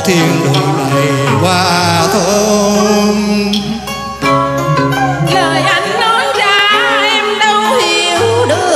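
Male voice singing a cải lương (Vietnamese reformed opera) excerpt with heavy wavering vibrato over steady instrumental accompaniment; near the end a woman's voice takes up the song.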